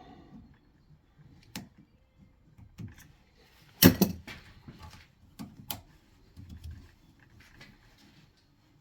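Scattered light clicks and taps from handling piston rings and a piston while fitting the rings into their grooves, with a sharp double click about four seconds in.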